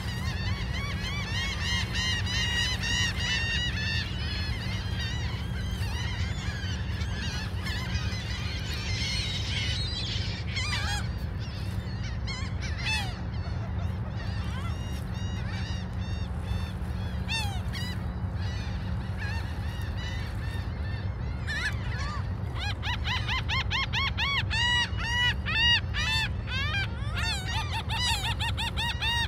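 Gulls calling, with runs of short repeated squawks that come thick in the first ten seconds, thin out, then come thick again over the last several seconds, over a steady low rumble.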